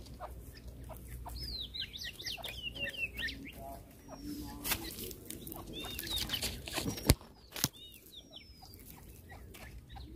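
Caged decoy grey francolins (teetar, Indian grey partridge) calling in a series of quick, high chirping calls that come in several clusters. A single sharp knock, the loudest sound, comes about seven seconds in, followed by a fainter one.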